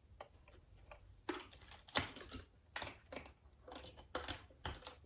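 Irregular clicks and rustles of hands handling a plastic portable radio and its power cord as the cord is plugged in.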